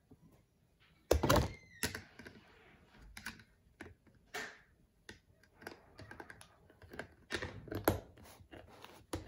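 Plastic Snap Circuits parts clicking and clacking as they are handled and set on the board. The clicks come irregularly, with the loudest cluster about a second in and another near the end.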